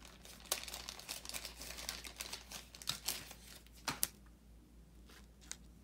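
Trading cards and crinkly plastic being handled: quick crackling and rustling, dense through the first four seconds and sparse after that.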